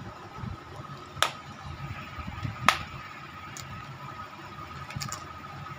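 Clear plastic food container being handled, giving two sharp plastic clicks about a second and a half apart, the second the loudest, with a few fainter clicks near the end and soft handling noise throughout.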